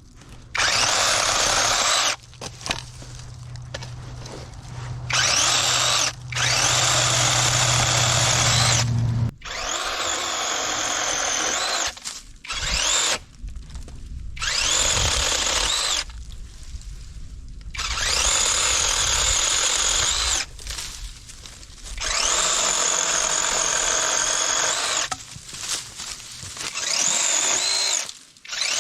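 Seesii 21-volt cordless mini chainsaw cutting through a branch in about nine short bursts. Each burst starts with a rising whine as the motor spins up and then holds a steady high whine, with short quiet gaps between the trigger pulls.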